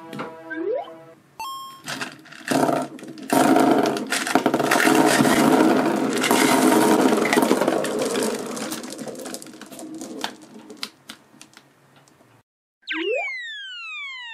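A short rising boing and a ding, then a long clatter of many small plastic balls spilling out and rolling across a tabletop, dying away about eleven seconds in. Near the end comes a cartoon sound effect of several falling whistle-like glides sounding together.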